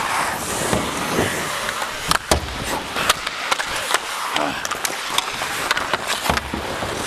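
Hockey skate blades scraping and carving on the ice, with repeated sharp clacks of sticks and puck, one louder crack a little over two seconds in.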